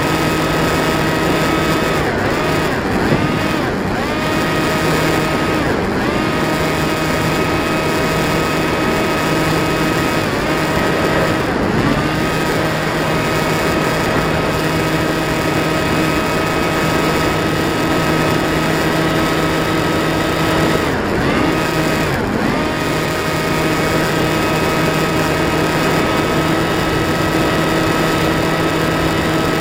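Electric motor and pusher propeller of a Bixler 2 RC plane running at a steady humming whine over a hiss of rushing air. Several times (a few seconds in, around ten seconds, and around twenty-one seconds) the pitch drops briefly and climbs back as the throttle is eased and opened again.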